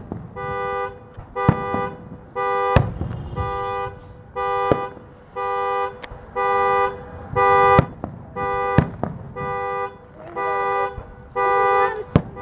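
A car alarm honking a two-tone car horn over and over, roughly one honk a second. Sharp firework bangs from aerial shells break in several times over the honking.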